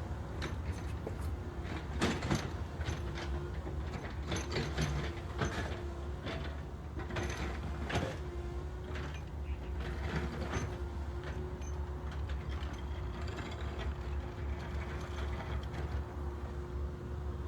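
Backhoe loader's diesel engine running steadily, with a string of sharp metallic clanks and knocks from the machine, most frequent in the first half.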